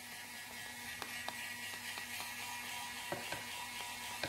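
Hand-held hair dryer running steadily with a whir, blowing air over a wet dog's coat, with a few light knocks about a second in and again just after three seconds.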